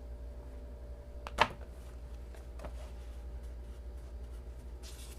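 Handling noise from a folding knife on a tabletop, over a steady low hum: a sharp click about one and a half seconds in, a softer click about a second later, and a short rustle near the end.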